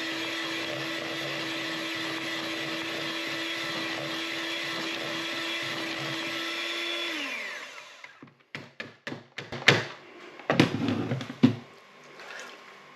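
Electric whisk running steadily at one speed, mixing sponge batter. About seven seconds in it winds down and stops, followed by a scatter of sharp clicks and knocks.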